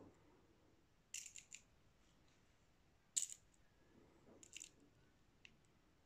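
Small Böker Plus balisong (butterfly knife) being handled, its metal parts giving sharp clicks: three quick clicks about a second in, one louder click about three seconds in, two more around the middle-late part and a faint one near the end.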